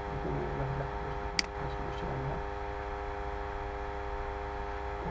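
Steady electrical mains hum with a single sharp mouse click about a second and a half in.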